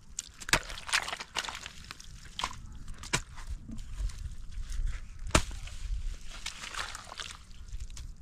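Broad-bladed hoe chopping into wet mud and turning it over: irregular wet strikes and slaps, the sharpest one about five seconds in.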